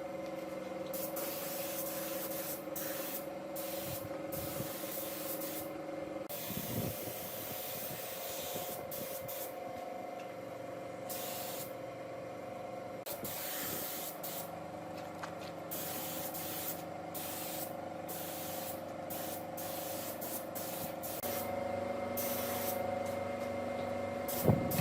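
Repeated short bursts of spraying hiss, starting and stopping every second or so, over a steady hum.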